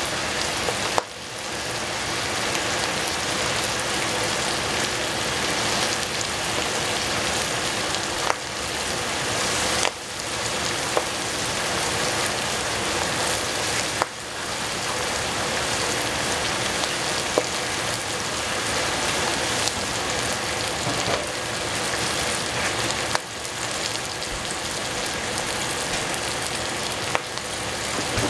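Tap water running steadily while a bowl is washed under it, with several brief knocks and short breaks in the flow.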